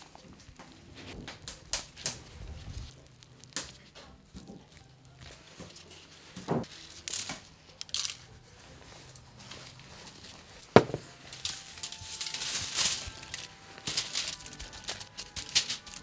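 Scattered knocks and clicks of handling and work, with a stretch of rustling, crinkling noise about three-quarters of the way in and one sharper knock just before it.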